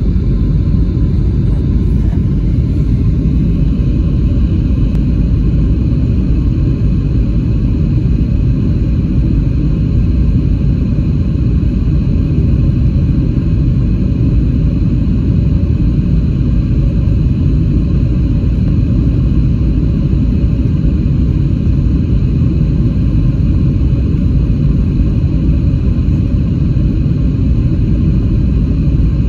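Cabin noise inside a Boeing 737-700 on its descent to land: a steady low rumble of CFM56-7B turbofan engines and airflow, with a faint steady high whine over it.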